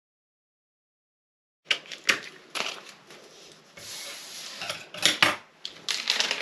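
Scissors cutting out a paper sewing pattern: a series of sharp snips with paper rustling between them, starting about a second and a half in.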